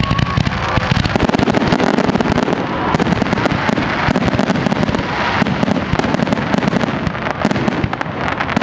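Fireworks going off in a dense, unbroken barrage of rapid bangs and crackling.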